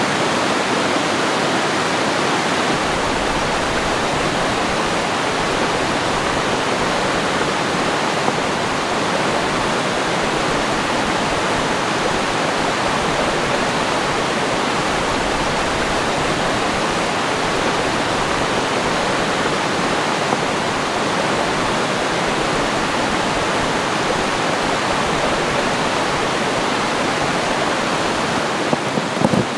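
Fast rocky stream rushing over stones, a steady, even sound of flowing water, with a few small knocks near the end.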